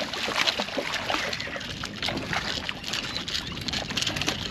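Hooked fish thrashing and splashing at the water's surface beside a boat, with irregular splashes and water sloshing against the hull.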